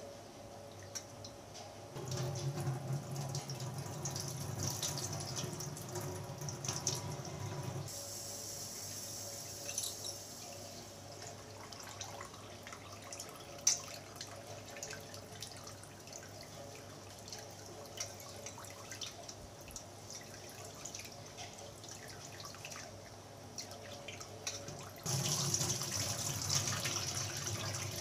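Tap water running into a steel bowl of rice in a stainless steel kitchen sink as the rice is rinsed and swished by hand, with dripping and small splashes. The water is loudest for about six seconds starting two seconds in, and again over the last three seconds.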